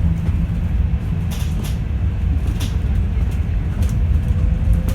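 Yutong E12 battery-electric bus on the move: a steady low rumble with a few short rattles, and a faint electric motor whine that rises slightly near the end.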